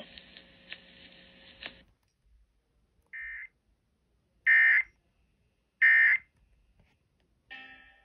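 Emergency Alert System end-of-message data bursts from a NOAA Weather Radio broadcast: three short, harsh digital buzzes about a second and a half apart, the second and third louder, marking the end of the alert. Before them the radio's hiss cuts off after about two seconds, and a short crackle comes near the end.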